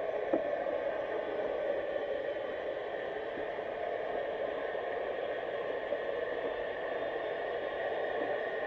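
Steady underwater hiss picked up by a GoPro in its waterproof housing, with a faint steady high whine and one small tick shortly after the start.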